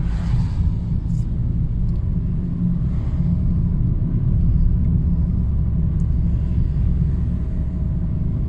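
Steady low rumble of car traffic, with a faint thin whine joining about three seconds in.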